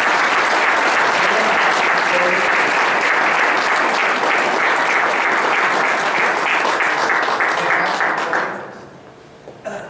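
Audience applauding, steady, then dying away about eight and a half seconds in.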